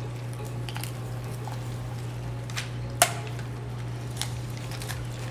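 Kitchen scissors and hands working on a raw whole chicken, cutting out the backbone: scattered small clicks and wet handling noises, with one sharp snap about three seconds in. A steady low hum runs underneath.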